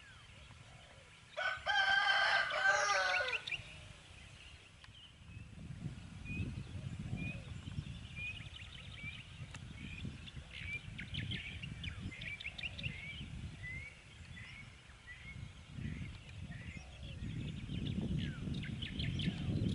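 A rooster crows once, about a second and a half in, lasting about two seconds and the loudest sound here. Afterwards a small bird gives a long string of short rising chirps, about one and a half a second, over a low rumble that grows near the end.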